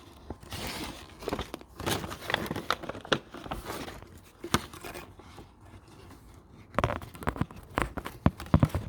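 Rustling and crinkling with scattered light clicks and knocks, as of small plastic toys and a bag being handled.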